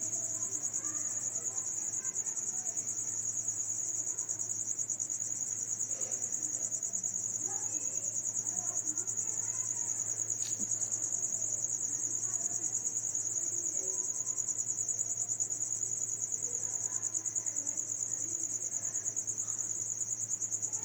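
Cricket trilling steadily, a continuous high, rapidly pulsing chirr, over a low steady hum.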